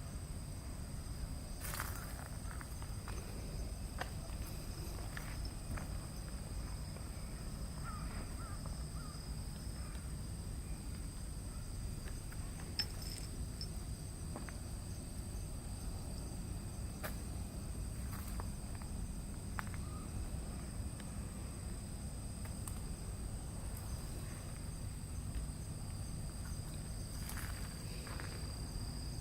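Insects trilling steadily in two high pitches over a low rumble, with a few faint clicks scattered through.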